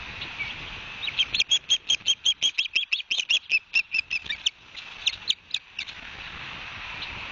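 Osprey calling at the nest: a fast series of high, sharp chirps, about six a second for some three seconds, then a few more spaced chirps before it stops.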